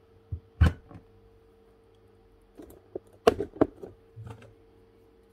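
A few sharp clicks and knocks of a tester pen and other small tools being handled and set down on a workbench, over a faint steady electrical hum.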